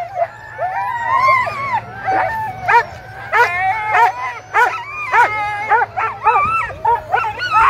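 A harnessed team of sled dogs held at the start line, barking, yelping and howling over one another in a continuous excited chorus, eager to run.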